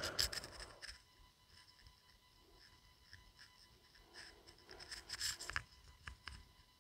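Faint scraping and scratching of a spatula stirring brinjal pieces in an iron skillet, in short strokes that cluster about four to six seconds in.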